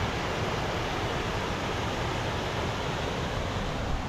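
A stream rushing steadily, with uneven low rumbling from wind on the microphone.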